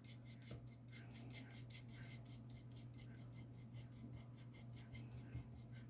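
Paintbrush loaded with gouache scrubbing over watercolour paper in small criss-cross strokes, faint and quick, about five strokes a second, to give the painted wall a textured, wallpaper-like surface. A steady low hum runs underneath.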